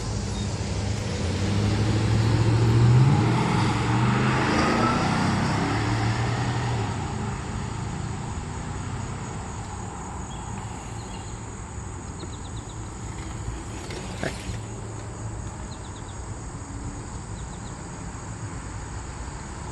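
A road vehicle passing by, its engine loudest about three seconds in and fading away by about seven seconds, leaving a steady outdoor background with a single sharp click near the middle.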